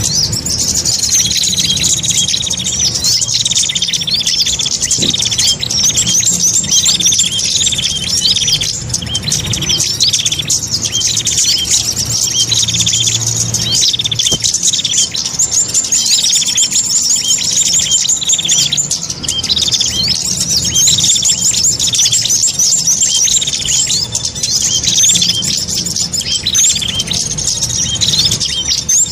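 Small songbirds' calls from a bird-lure recording: rapid, unbroken high-pitched chirping and trilling, repeated over and over, with a faint steady low hum underneath.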